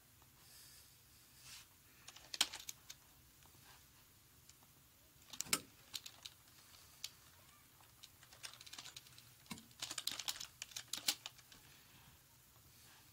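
Keystrokes on a computer keyboard as a question is typed, coming in irregular bursts with a few louder clicks and short pauses between them.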